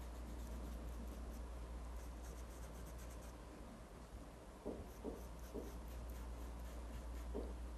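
A small paintbrush scrubbing paint onto fabric, a faint dry rubbing, shading the painted leaves. A few soft knocks come about two-thirds of the way in and again near the end, over a steady low hum.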